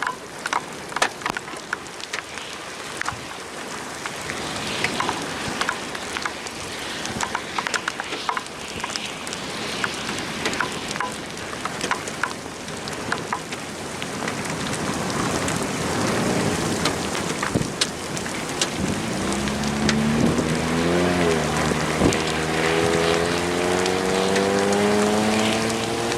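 Steady rain with scattered sharp drop ticks, growing gradually louder. In the last third an engine comes in, its pitch rising slowly as it speeds up.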